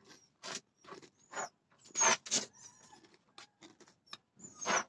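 Someone chewing crispy fish crackers: irregular crunches, the louder ones about two seconds in and near the end.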